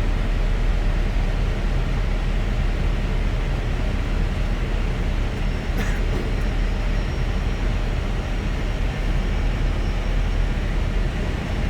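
Steady wind and engine noise inside an Airbus A320 flight deck on short final approach, with a brief click a little before halfway.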